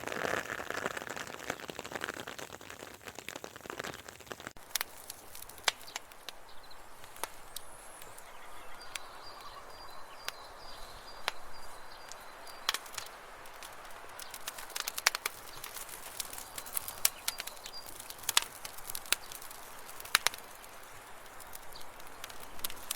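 Sleet and freezing rain falling, with scattered small ticks and clicks of ice pellets hitting frozen surfaces.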